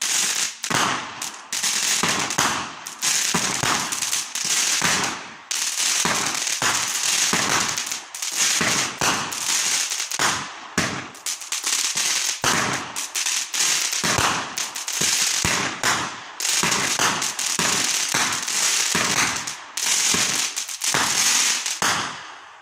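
Loud, dense crackling hiss in rapid overlapping surges, each starting suddenly and fading, dying away near the end.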